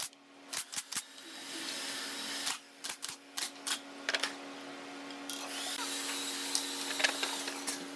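Pneumatic nail gun firing nails into the joints of a wooden cabinet panel, with sharp shots in quick runs. A steady low hum and a hiss run underneath.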